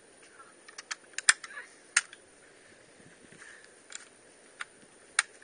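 A string of irregular, light, sharp clicks and taps, about ten in all, the sharpest a little over a second in and again at two seconds.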